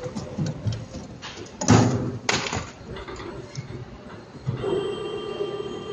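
CNC spring coiling machine running as it forms extension springs: a steady mechanical hum with scattered clicks, a loud clattering burst about two seconds in followed by a sharp knock, and a steady whine coming back near the end.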